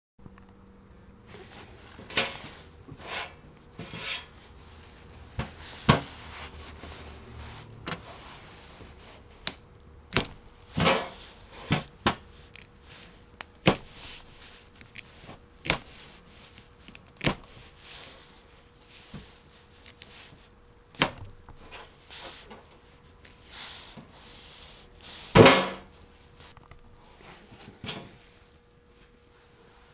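Mini flint sparker struck again and again to throw sparks onto tinder tabs: sharp, irregular clicks and scrapes, roughly one every second or two, the loudest about 25 seconds in.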